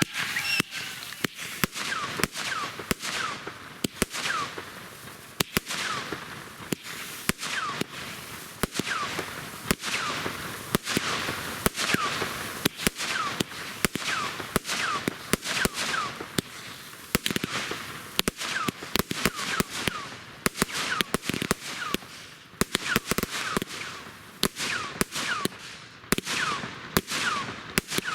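Firework display going off in a rapid barrage: a dense string of sharp bangs and pops, mixed with many short falling whistles.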